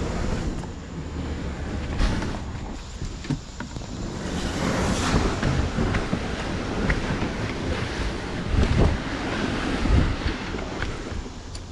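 Wind buffeting the microphone over a rush of water, with louder gusts about two seconds in and again near nine and ten seconds.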